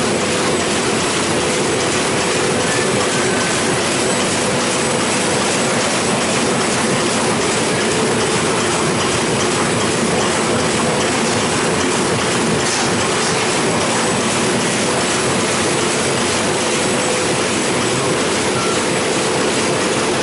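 Heidelberg Speedmaster SX 74 five-colour sheetfed offset press running: a loud, steady mechanical clatter with a fast, even rhythm.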